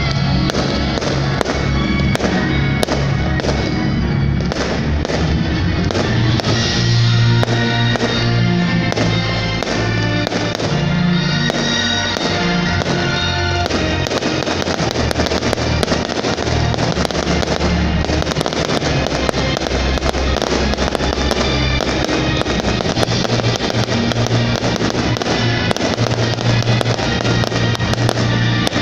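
Fireworks bursting, with repeated sharp bangs and crackles, over loud show music with guitar; the crackling grows denser about halfway through.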